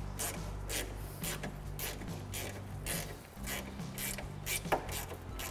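Hand ratchet with a 10 mm socket clicking in repeated short strokes, about two a second at uneven spacing, as a nut on the radiator support is run down and tightened.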